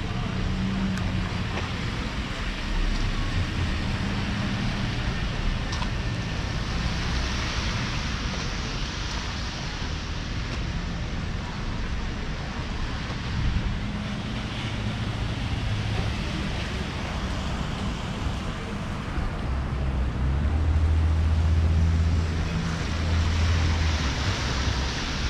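A car on the road: a steady low rumble with tyre and wind hiss, swelling slightly near the end.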